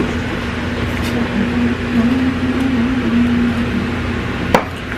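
A steady mechanical hum with a low tone that wavers slightly, and a single sharp click near the end.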